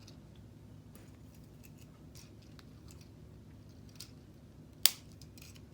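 Plastic K'nex pieces clicking as spokes are pushed onto their connectors: a few light clicks, then one sharp snap near the end. A faint low hum runs underneath.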